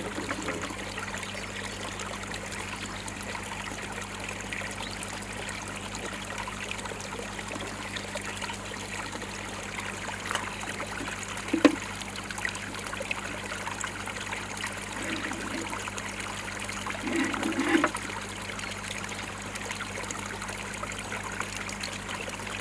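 Water trickling steadily into a koi pond, over a low steady hum, with a sharp knock about halfway through and a brief scraping clatter later on as the skimmer is shifted into place.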